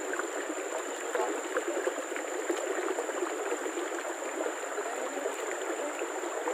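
Shallow, rocky river water running and gurgling steadily, with a thin, steady high-pitched whine above it.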